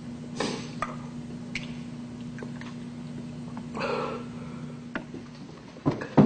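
A man eating noisily at a table, short slurping and mouth noises over a steady low electrical hum, with a few louder rough bursts near the end.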